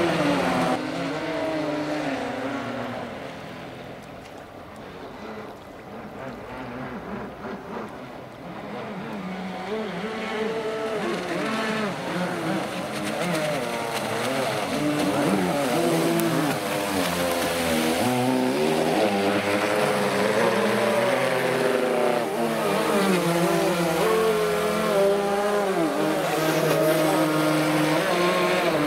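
Motors of radio-controlled model speedboats running fast on the water. Several motor notes overlap, their pitch rising and falling with throttle. The sound dips a few seconds in and is louder through the second half.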